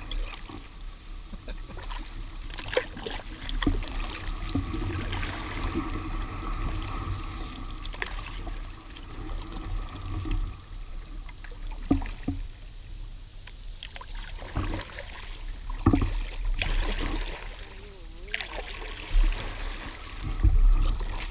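Kayak paddle strokes through shallow water and lily pads, the blades dipping and splashing, with irregular sharper knocks every few seconds.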